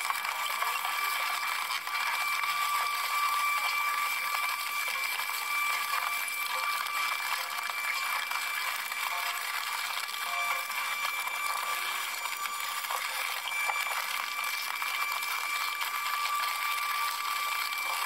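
Twin-shaft industrial shredder tearing up a car body: a dense, steady crackle of metal crunching and grinding under a constant high whine. The sound is thin, with no bass.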